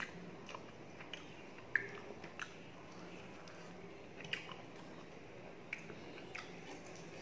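Close-up chewing of a mouthful of rice and mutton curry, with irregular wet smacking clicks, the sharpest about two seconds in.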